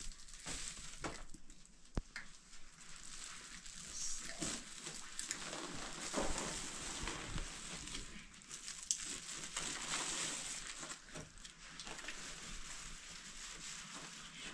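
White woven plastic sacks rustling and crinkling as they are unfolded and spread out on the floor, with scattered small clicks and handling knocks.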